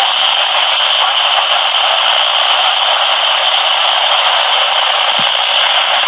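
Steady, loud hiss of radio static on an open channel with no voice on it.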